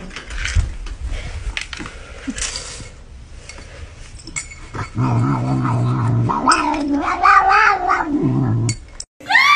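Domestic cat's low, drawn-out growling yowl, starting about five seconds in and lasting nearly four seconds, wavering and breaking a few times: the cat is guarding its food bowl from a hand reaching toward it.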